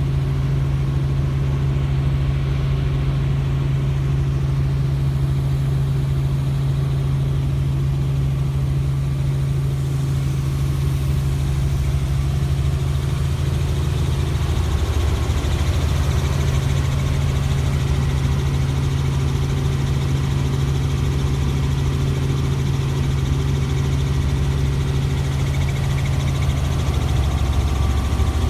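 Helicopter running with a steady low drone, its pitch dipping briefly about halfway through.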